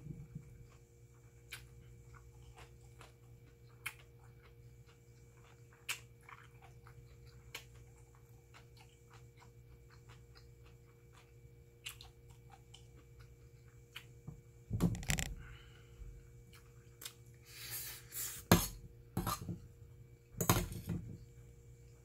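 Close-up chewing of a mouthful of rice, with small wet mouth clicks. About two-thirds of the way through, a metal spoon clinks and scrapes in a stainless steel pot several times as rice is scooped up. A faint steady hum sits underneath.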